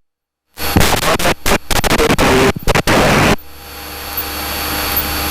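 Small-plane cabin noise in flight: a Cessna's piston engine and the wind outside droning. After a brief dead gap, it comes in as loud, rough, crackling noise, then about halfway through turns into a steadier hum that slowly swells.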